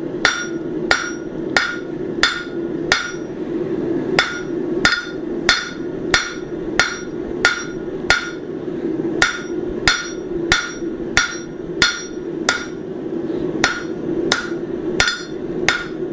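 Hand hammer striking hot steel on the horn of an anvil, drawing out a bar: steady blows about one and a half a second, each with a short metallic ring, pausing briefly twice. A steady low hum runs underneath.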